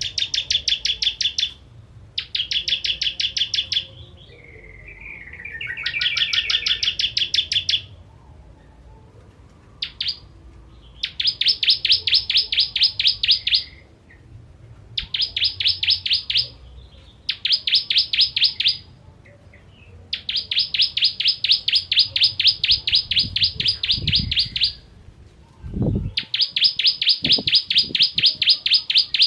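Ciblek kristal, a prinia, singing: fast trills of sharp, high notes, each burst a second or several long, repeated after short pauses, with one lower warbling phrase early on mixed in.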